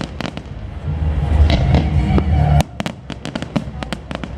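Aerial fireworks going off: many sharp cracks and reports in quick succession over a deep rumble of booms, and the rumble cuts off suddenly about two and a half seconds in while the crackling goes on.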